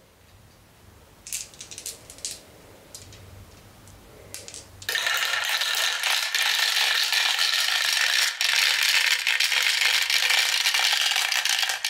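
Marbles rolling and clacking down a plastic Galt marble run: a few scattered clicks at first, then, about five seconds in, a loud steady rattle as many marbles run down the zigzag track at once.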